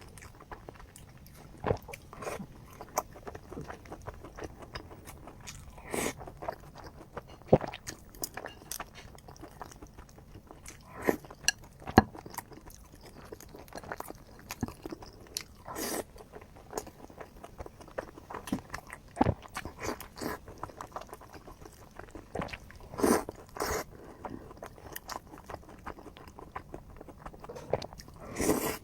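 A person chewing and biting food, with irregular crunches and sharp mouth clicks, a few of them noticeably louder.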